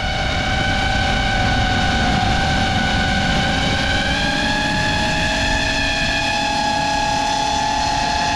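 FPV quadcopter's brushless motors (2207, 1750KV) whining steadily with propeller wash, several close tones from the motors running at slightly different speeds. The sound grows louder over the first second, and the pitch rises a little about four seconds in.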